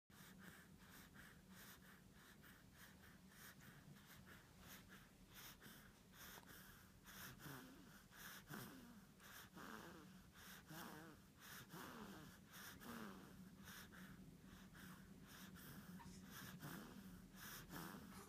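Faint snoring: slow, wheezy breaths, with several short snores that waver in pitch through the middle and later part. A steady low hum runs underneath.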